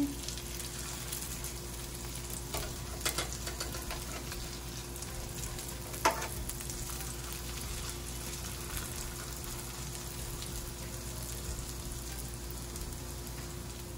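Shami kababs shallow-frying in oil over a medium flame: a steady sizzle, with a few light clicks of a metal spatula against the pan as the patties are flipped, the sharpest about six seconds in.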